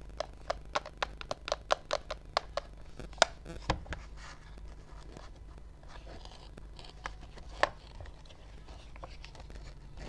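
Hard plastic of a toy refrigerator being handled: a quick, even run of about a dozen sharp clicks and taps in the first three seconds, a few more clicks, then quiet rustling and one louder click as a door snaps open.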